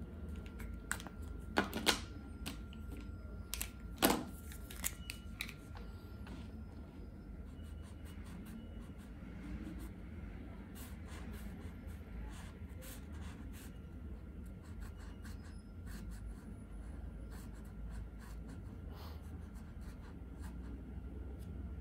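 Posca paint marker tips scratching and tapping on drawing paper, with a few sharp clicks about two and four seconds in as markers are handled.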